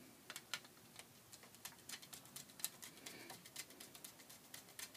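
Faint, irregular small clicks and scrapes of a screwdriver turning the terminal screw of a GFI circuit breaker, tightening the white neutral wire into it.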